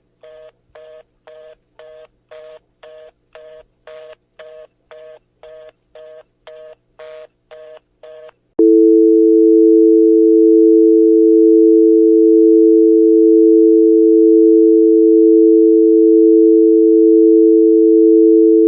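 Telephone line tones: a fast busy (reorder) signal, short two-note beeps about twice a second, then about 8.5 seconds in a much louder steady dial tone takes over.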